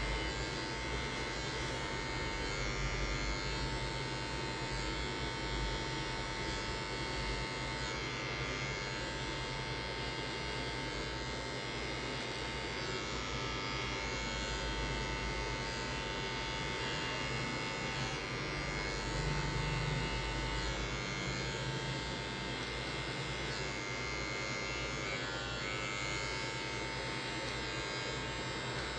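Electric hair clipper running with a steady buzz, cutting short hair over a comb (clipper-over-comb fading).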